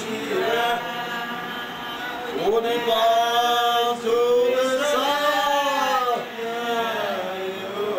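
A man's voice chanting in long, drawn-out notes that rise and fall, with the longest held notes in the middle.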